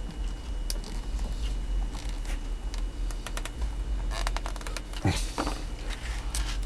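Small clicks and scrapes of a small screwdriver gently prying parts off a Galaxy DX-98VHP CB radio's front panel. There is a quick run of ticks about four seconds in and a sharper knock about a second later, over a steady low hum.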